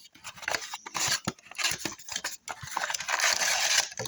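Trading-card blaster box packaging being opened by hand: scattered crinkles and clicks, then a steady tearing rasp for about a second and a half near the end.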